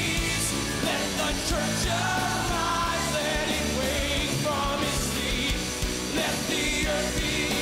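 Worship song: singing over a full band accompaniment, with sustained bass notes.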